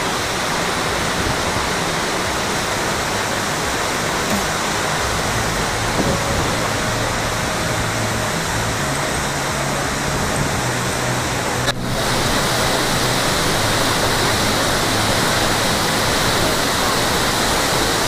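Steady rush of a large waterfall's falling water. There is an abrupt break about two-thirds of the way through, and the rush is slightly louder after it.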